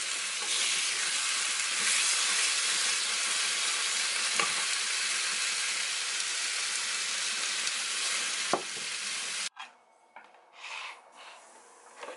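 Bean sprouts, cabbage and sundae sizzling in a frying pan as they are stir-fried, with a couple of short knocks against the pan. The sizzling cuts off suddenly about nine and a half seconds in, leaving only faint clinks.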